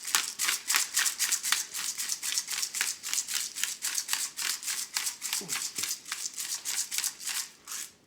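Pepper grinder being twisted, a quick even run of scratchy grinding clicks at about five strokes a second that stops near the end.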